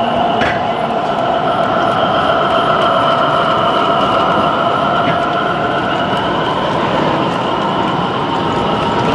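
Gauge 0 model diesel locomotive hauling coaches past: a steady running sound with several held tones over a constant background hum.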